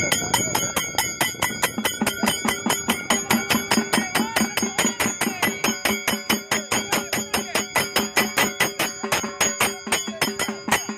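A metal bell rung rapidly by hand at a steady beat of about four strokes a second, its ringing carrying on between strokes.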